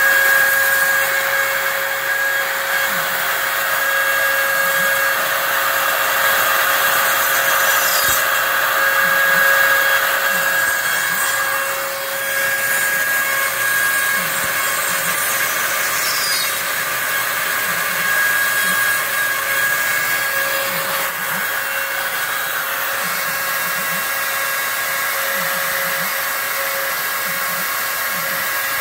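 Router spindle of a home-built CNC router running steadily as it mills foam, with the rush of a dust-collection vacuum drawing chips through a hose at the bit.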